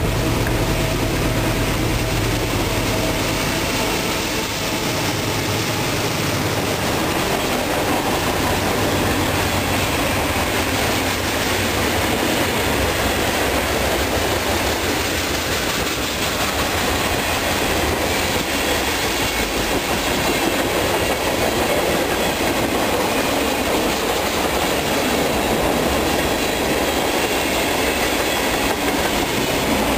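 Freight train rolling past at close range: a steady, loud rumble and clatter of wheels on the rails as tank cars and covered hoppers go by.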